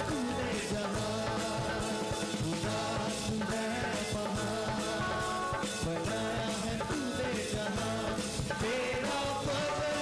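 Live Urdu/Hindi worship song: a singer's voice over a steady beat on a hand-played two-headed barrel drum (dholak), with sustained instrumental notes underneath.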